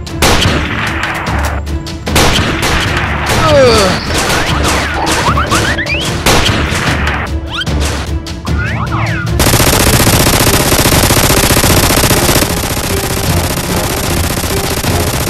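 Gunfire sound effects over background music. Scattered single shots and a few falling whistles come first, then from about nine seconds in a long, rapid machine-gun burst lasts about six seconds.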